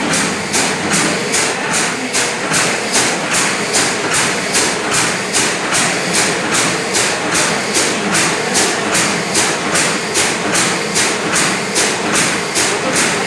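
Liquid filling machine running in a steady cycle, a short noisy stroke repeating roughly two and a half times a second.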